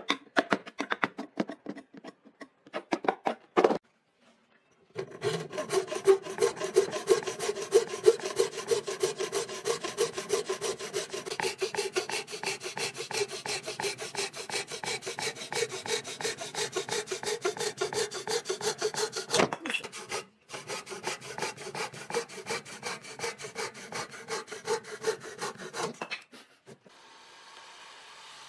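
A hand tool worked rapidly back and forth across wood, scraping it away at several strokes a second in a long steady run, with a few slower strokes before it and a brief break in the middle.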